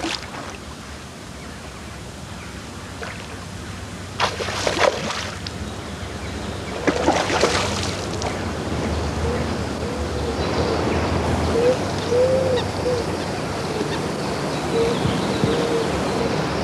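A hooked rainbow trout splashing and thrashing at the water's surface as it fights the line. There are two louder bursts of splashing, about four and seven seconds in, over a noisy wash that grows louder later.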